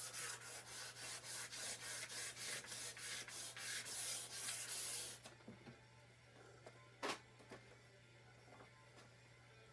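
Wet/dry sandpaper rubbed back and forth by hand along a rusty steel chainsaw guide bar, about two or three strokes a second, stopping about five seconds in. A single sharp knock about seven seconds in.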